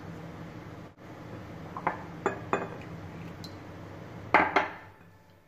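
A silicone spatula stirring flour and water into dough in a ceramic bowl, knocking against the bowl: three light clicks about two seconds in, then two louder knocks near the end.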